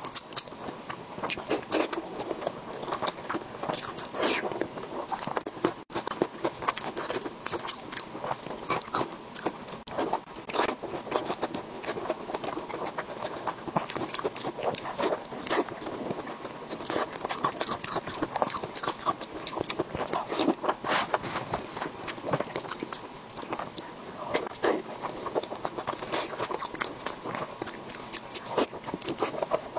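Eating sounds: wet biting, chewing and lip smacks on soft, oily food in chili sauce, heard as a dense run of small clicks and squelches. Gloved hands tear and squeeze the food.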